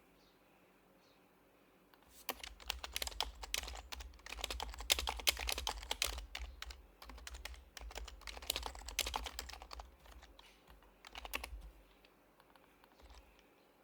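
Typing on an HHKB Professional HYBRID Type-S keyboard, whose silenced Topre keys make soft, muted clacks. After about two seconds of quiet come fast bursts of keystrokes lasting roughly nine seconds, with short pauses between the bursts, then a few last keystrokes near the end.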